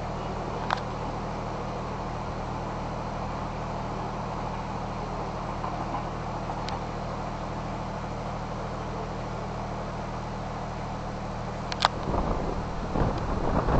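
Steady low hum and rumble at a railway platform as a double-deck electric train pulls away, with a few faint clicks. Near the end, wind buffets the microphone, louder than the hum.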